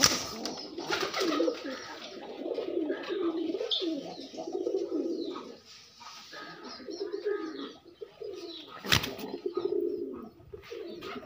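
Domestic pigeons cooing in repeated low, wavering bouts, with sharp knocks at the start and about nine seconds in.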